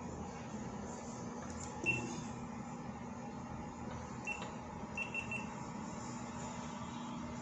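Short high electronic beeps from a GoPro Hero 8 while it pairs with the phone app: one about two seconds in with a soft knock, another a little past four seconds, then three quick beeps about a second later, over a steady low hum.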